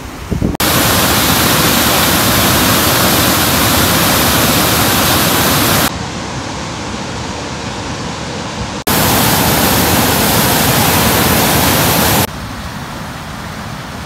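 Heavy water rushing out of a dam's open sluiceway and over rocks in a steady, loud rush. Its loudness drops sharply about six seconds in, comes back about three seconds later, and drops again near the end.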